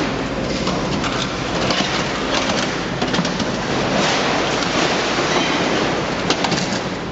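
Heavy machinery working scrap metal: a loud, steady mechanical noise with frequent metallic clanks and rattles, and a sharper crash about six seconds in.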